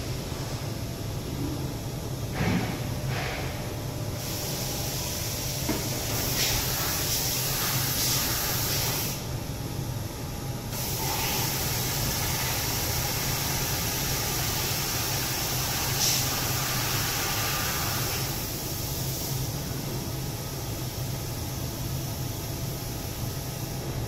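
CNC vertical machining centre running with a steady low hum. A loud hiss comes in about four seconds in, drops out briefly near ten seconds, and stops around nineteen seconds.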